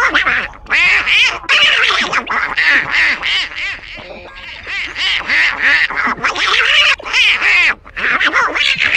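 A squawky, duck-like gibberish voice chattering rapidly, with a brief softer stretch about four seconds in. It is the garbled speech of an alien whose translator is not yet working.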